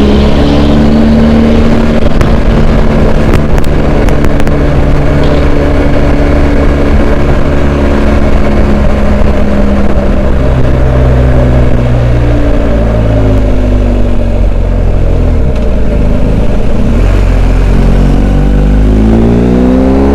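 Twin-cylinder adventure motorcycle engine under way, its pitch falling and rising with throttle and gear changes and climbing near the end.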